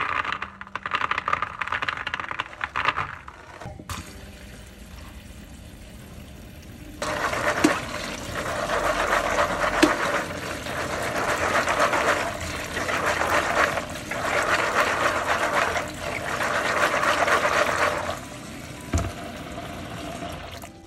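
Green peas tipped into a plastic colander at the start, then tap water runs onto them in a stainless steel sink, splashing and draining through. The stream swells and eases in several stretches before stopping near the end.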